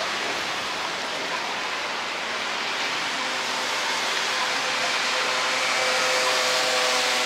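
Steady hiss of rain and traffic on a wet city street, growing a little louder in the second half as a vehicle's hum comes in.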